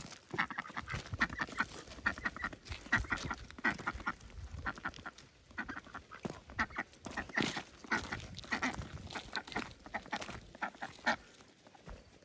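Domestic ducks and geese at a pond calling: many short, honking quacks in quick runs, thinning out toward the end.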